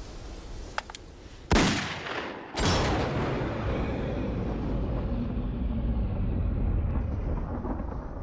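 Two pistol shots about a second apart, each a sharp blast with a long echoing tail, followed by a low rumble that slowly fades. Two faint clicks come just before the first shot.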